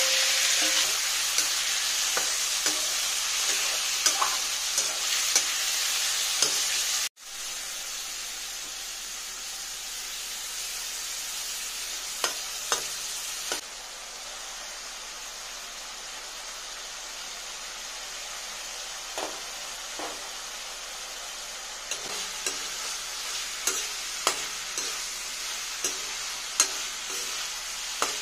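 Raw chicken pieces sizzling loudly in hot oil in a metal wok as they are tipped in. After a sudden cut about seven seconds in, a quieter steady sizzle continues, with scattered clicks and scrapes of a utensil stirring against the pan.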